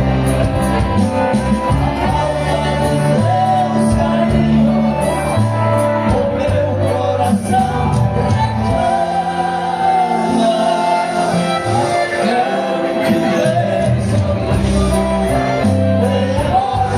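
Live band music led by an accordion, with a singing voice over a steady, stepping bass line.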